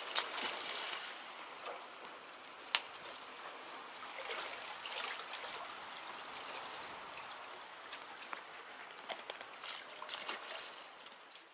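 Harbour water gently lapping and trickling: a soft, steady wash with scattered small ticks and splashes, a few more of them near the end.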